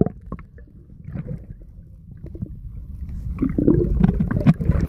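Muffled underwater sound picked up by a phone in a waterproof cover held under the sea: a low rumble of moving water with scattered bubbling and clicks. It grows louder about three seconds in.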